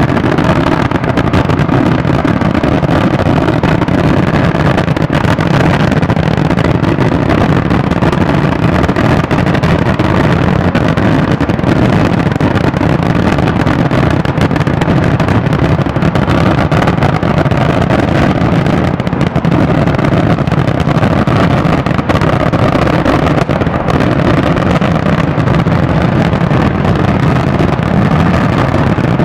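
Daytime fireworks display: aerial shells bursting in a continuous, dense barrage of bangs and crackling, with no pause.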